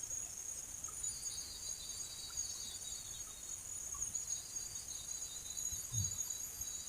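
Steady high-pitched chorus of rainforest insects, with a second, lower pulsing trill joining about a second in. A brief low thump comes near the end.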